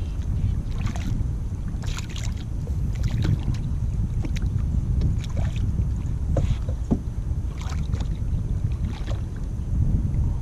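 Steady rumble of wind on the microphone, with scattered short splashes and clicks as a small hooked fish thrashes at the surface and is lifted up to the canoe.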